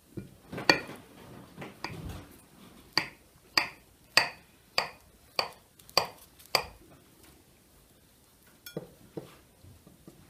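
Metal cutlery clinking against glass: a knife tapping and scraping on a cut-glass cake stand while slices are cut. A few scattered clinks, then a steady run of about seven ringing clinks roughly 0.6 s apart, then two softer ones near the end.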